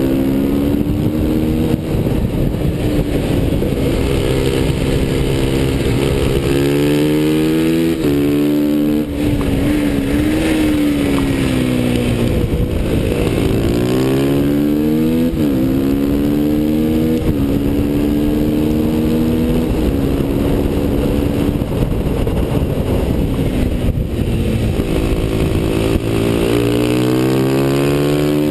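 KTM Duke 125's single-cylinder engine at high revs, its pitch climbing through each gear and dropping suddenly at every upshift, with slower falls where it slows for corners. A steady rushing hiss runs under it.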